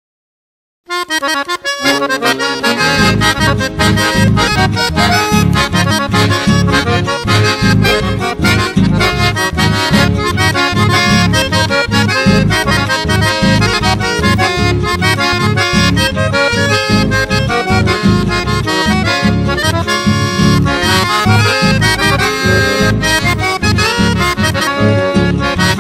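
Chamamé music begins about a second in, after a short silence: an accordion leads over a steady, pulsing bass beat, with no singing.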